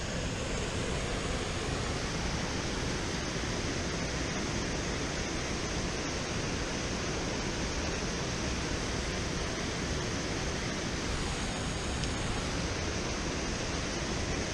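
Steady rush of water flowing out of a dam's outlet and over rocks, an even noise without a break.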